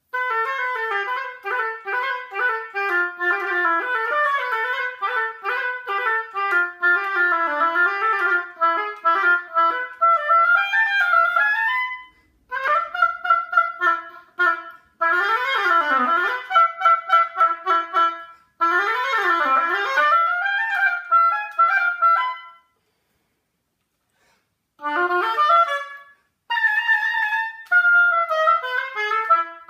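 Solo oboe played unaccompanied: lively melodic phrases with quick runs sweeping down and back up, broken by short breaths and a pause of about two seconds before the playing resumes.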